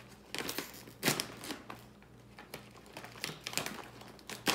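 Crinkling and tearing of a resealable granola pouch as its top is torn off and the bag pulled open, in a few irregular crackles, the sharpest about a second in and right at the end.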